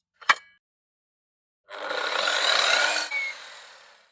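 Chop saw with its depth stop set, running up and making a short, shallow cut into wood, then the blade spinning down and fading. A sharp click comes just before, about a third of a second in.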